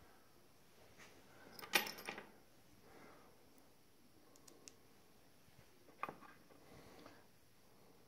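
A few light metal clinks and knocks from steel engraving-vise parts being handled on a wooden bench. The loudest comes about two seconds in and a smaller one about six seconds in, with faint ticks between.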